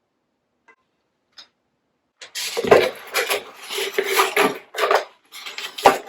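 Porcelain dinnerware being handled: clinking and knocking of plates and dishes, starting about two seconds in after a few faint clicks, with sharp knocks among the clatter.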